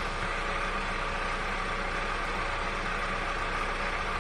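Steady mechanical hum with a low drone and a few steady tones, holding an even level throughout.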